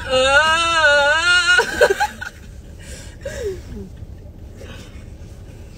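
A voice sings a wavering 'whoa-oh' for about a second and a half, then there are scattered giggles and laughter that die down, over a low car-interior rumble.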